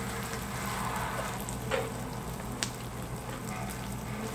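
Pork belly sizzling on a grill with a steady hiss, two sharp clicks about two seconds in and again a second later, over a low steady hum.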